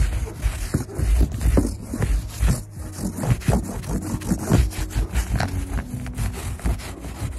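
Sticky lint roller rubbed back and forth over a car's fabric soft top in quick repeated strokes, lifting cat hair.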